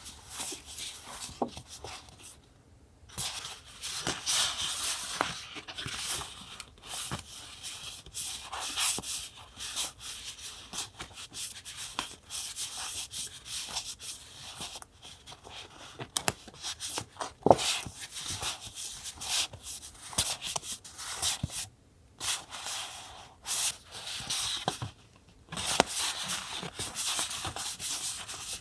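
Close-up paper handling for collage journaling: paper rustling and rubbing in irregular scratchy bursts, with small clicks and taps, pausing briefly a few times.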